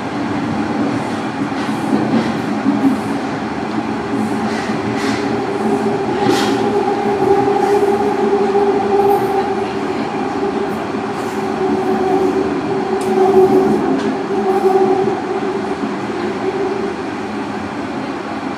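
Toronto Rocket subway train heard from inside the car while running through the tunnel: a steady rumble and hum of the moving train, with a few clicks about five to seven seconds in.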